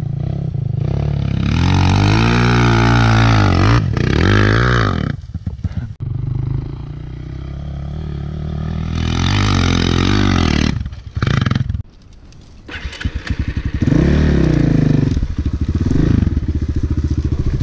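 Dirt bike engine revving up and down as the rider opens and closes the throttle, climbing in pitch about two and nine seconds in and again near fourteen seconds, with a sudden drop to a low running note around twelve seconds in.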